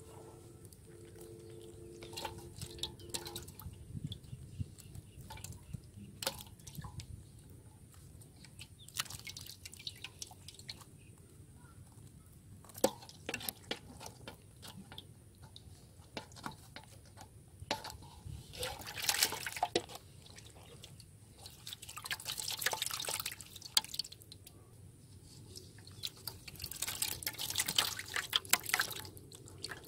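Water dripping and splashing into a shallow basin as live fish are shaken out of a bamboo fish trap, with short splashes of catfish thrashing in the water. The splashing comes in scattered bursts, busiest about two thirds of the way through and again near the end.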